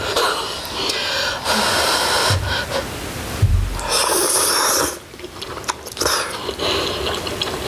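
Slurping of wide Korean glass noodles and hotpot broth: a run of slurps about a second long each.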